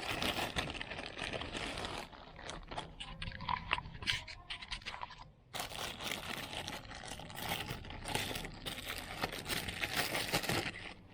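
A parcel being unwrapped by hand: packaging crinkling, scraping and tearing. It comes in two long spells with a brief pause about five seconds in.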